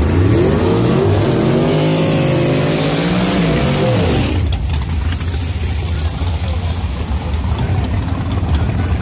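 A drag car's engine revving hard, its pitch climbing for about four seconds before it drops away, then a steady low engine rumble.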